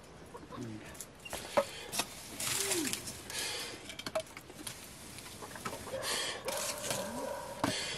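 Burning firewood sticks knocked and shifted about on an open wood-fire hearth, giving scattered sharp wooden clicks and knocks and a couple of brief hissing rushes.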